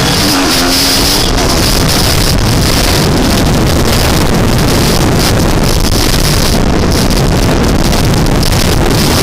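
Heavy wind buffeting on an action camera's microphone while riding a dirt bike, with the bike's engine running underneath.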